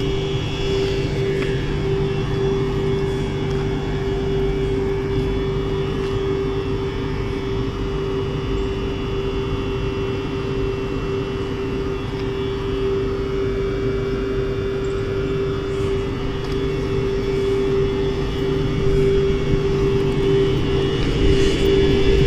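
Alstom WAG12B electric locomotive standing with its machinery running: a steady drone with one strong, unchanging whine over a low rumble, growing a little louder near the end.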